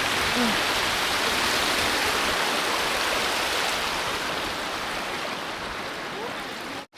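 Steady rush of flowing water, like a stream or small cascade, cut off suddenly near the end.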